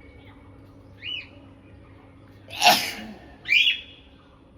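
A single sneeze about two and a half seconds in, followed a moment later by a short, high, gliding squeak. A similar brief high squeak comes about a second in.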